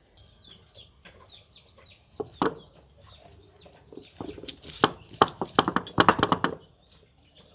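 Grinding stone pounding and crushing whole spices, shallots and garlic on a stone grinding slab. There is a single knock about two seconds in, then a quick run of knocks about five seconds in. Short bird chirps sound faintly in the first two seconds.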